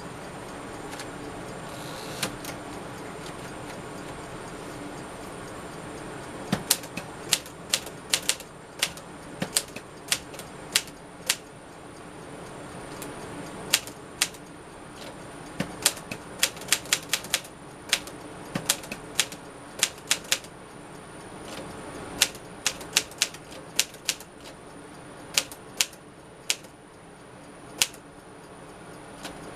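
Smith-Corona Silent-Super manual typewriter being typed on: sharp, irregular keystroke clacks as the typebars strike, sparse at first and then in quick runs from several seconds in. A steady faint hum runs underneath.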